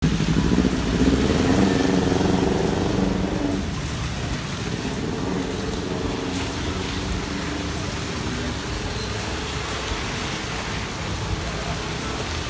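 Wet-road street traffic in a rainstorm: a vehicle engine running close by for the first three or four seconds, then a steady hiss of rain and tyres on the wet road.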